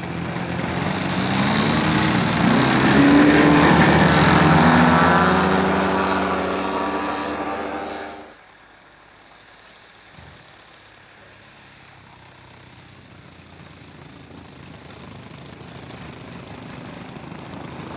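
Radio-control model aircraft engine running loudly as the plane flies by, its pitch shifting up and down. It cuts off suddenly about eight seconds in. A fainter engine sound then slowly grows louder.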